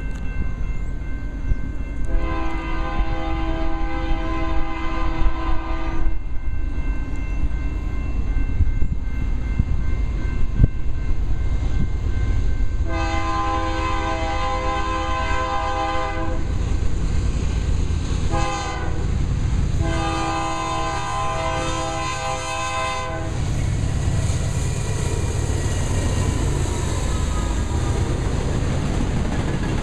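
Diesel locomotive air horn sounding a chord in the grade-crossing pattern: two long blasts, a short one, then a long one. Under it the lead locomotives' diesel engines rumble steadily, and after the last blast the clatter of the passing train's wheels on the rails grows louder.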